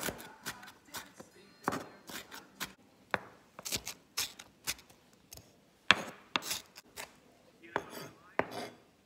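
Blunt santoku-style kitchen knife chopping onion and celery on a wooden cutting board: a run of uneven sharp knocks of the blade on the board, several a second.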